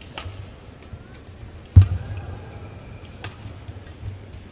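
Badminton rally: sharp racket strikes on the shuttlecock about every one and a half seconds, three in all, the loudest about two seconds in, over a low hum from the hall.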